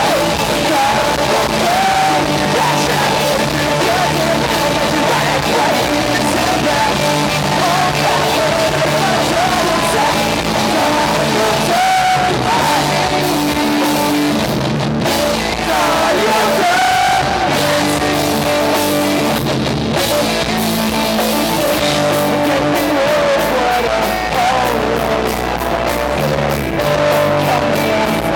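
A pop-punk band playing live and loud: electric guitars, bass and drums under a male lead vocal. Near the end, quick, evenly spaced drum hits come to the fore.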